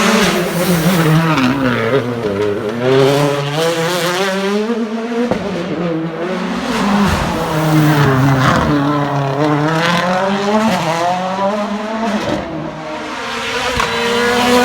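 World Rally Car engines, turbocharged 1.6-litre four-cylinders, revving hard through the gears at full race pace, the pitch climbing and dropping again and again as the car accelerates, shifts and brakes. The note changes abruptly about five seconds in, and falls off before building again near the end.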